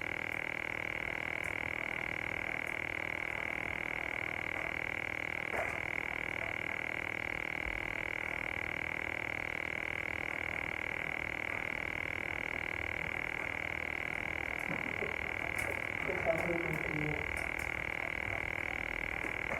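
Steady high-pitched electronic whine and hiss from the recording phone's microphone, the constant noise that spoils her audio. Faint handling knocks come through it once near the start and briefly near the end.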